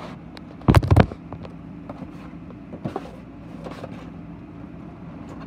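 Handling noise from a phone camera being moved about: a quick cluster of loud knocks about a second in, then a few lighter taps and rustles over a steady low hum.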